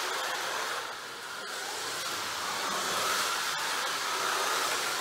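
Scalextric Mini Cooper slot cars' small electric motors whirring as they run round the track, the pitch rising and easing with the hand throttles, with a few light clicks.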